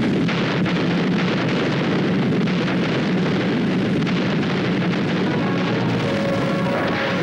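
Continuous rumble of an artillery barrage, explosions and shellfire merging into one dense, steady din. Music fades in faintly near the end.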